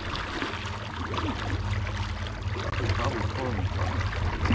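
Water churning and splashing steadily in the propeller wash of a Watersnake electric trolling motor as the small boat moves along, over a low rumble.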